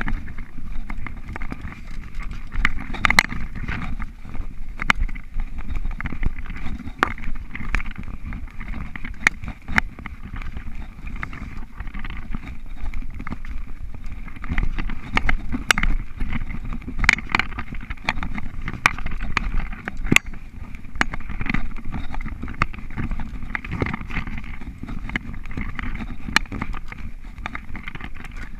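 Mountain bike being ridden fast over a dirt forest singletrack, heard from a GoPro mounted on the rider: a steady low rumble of tyres on dirt and air rushing past, broken by frequent sharp clicks and rattles from the bike jolting over roots and bumps.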